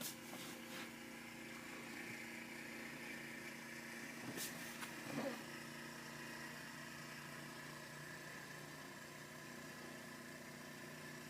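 A steady mechanical hum, as of a small motor or engine running, with a few brief clicks near the start and about four to five seconds in.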